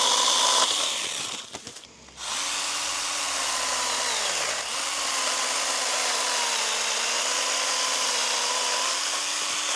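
Stihl GTA 26 battery pruner's electric motor and chain cutting a thick branch: it winds down and stops about a second in, starts again a second later, sags in pitch and nearly stalls at about four and a half seconds, then runs on steadily with its pitch wavering under load as the chain binds in the cut.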